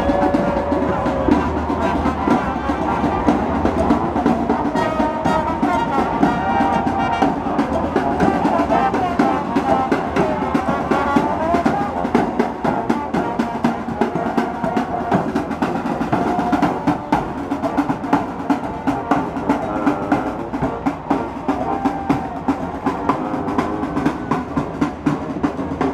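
Marching band playing: trombones and sousaphones carry a tune over a steady beat of snare and bass drums.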